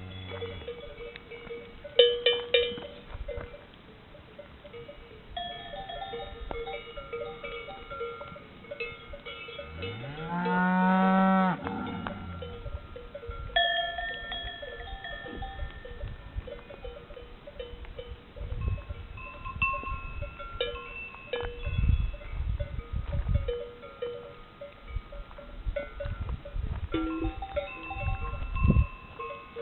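Cowbells of many different pitches clanking and ringing on a grazing herd of cattle, their bells sounding like gamelan gongs and bowls. About ten seconds in, a cow moos loudly once, its call rising in pitch.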